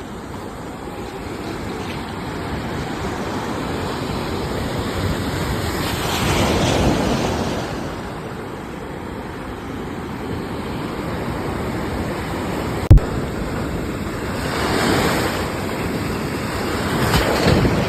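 Ocean waves surging and washing on the shore, swelling louder three times as sets come in. A single short, sharp low thump sounds about two-thirds of the way through.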